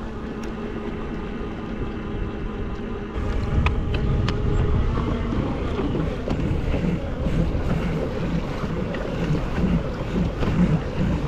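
Electric pedal-drive motor of an Old Town BigWater ePDL+ kayak running steadily on cruise control at about 4 miles an hour, a steady hum over water rushing past the hull. About three seconds in, this gives way to a louder rush of wind and water.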